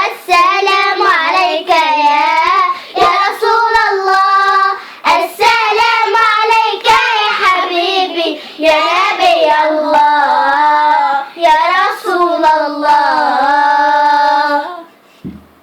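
Young girls singing an Arabic nasheed in praise of the Prophet, with sharp hand-clap strokes through the song. The singing stops about a second before the end, followed by a short low thump.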